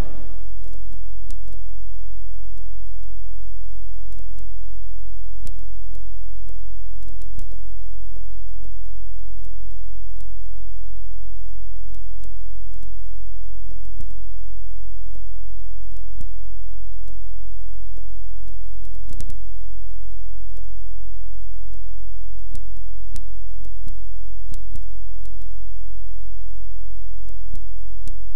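Loud, steady low electrical hum, like a mains or ground-loop buzz on the audio line, with faint clicks scattered through it.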